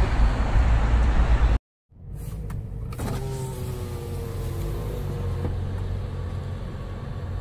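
Loud low rumble of road traffic, cut off abruptly, then after a brief silence a car's electric power window motor whining for about a second and a half as the side window is lowered, over a steady low hum inside the car.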